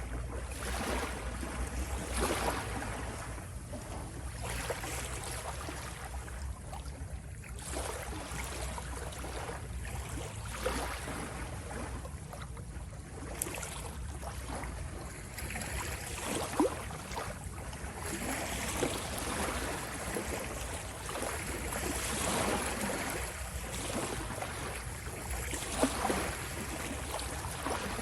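Sea waves washing and splashing, swelling and easing every few seconds over a steady low rumble, with a few brief sharper splashes.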